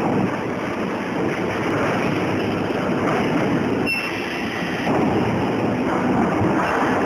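Bitumen-membrane roll palletizing line running, its conveyor carrying a stacked layer of rolls: a steady mechanical running noise, with a single sharp click about four seconds in.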